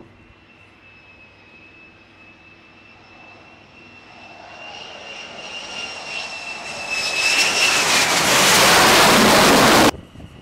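F-35C Lightning II jet on landing approach, its Pratt & Whitney F135 turbofan giving a steady high whine over jet noise that grows from faint to loud over several seconds. The whine dips slightly in pitch as the jet comes close, and the sound cuts off suddenly near the end.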